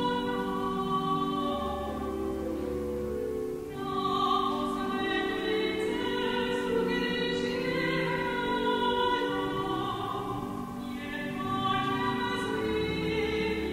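A slow song sung in an operatic style with pipe organ accompaniment, held notes in long phrases with brief breaks about a third of the way in and near the end.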